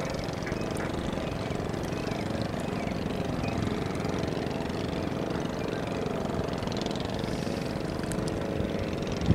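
An engine running steadily at an even pitch, with a few light clicks near the end.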